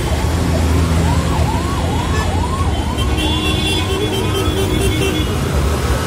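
A siren sweeping rapidly up and down, about two and a half sweeps a second, dying away after about four seconds. Heavy traffic rumbles underneath, with a steady horn-like tone overlapping from about three seconds in.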